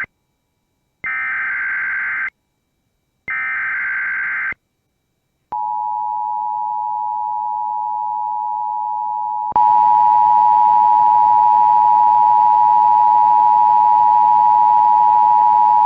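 Emergency Alert System tornado warning: two bursts of screechy SAME header data tones, about a second each and a second apart. Then a single steady tone, and about nine and a half seconds in the louder two-tone EAS attention signal, held steady.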